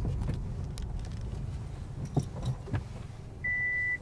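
Car cabin noise: a steady low road-and-engine rumble that dies down over a few seconds, with a few light clicks and rattles. Near the end, a short, steady, high-pitched beep lasting about half a second.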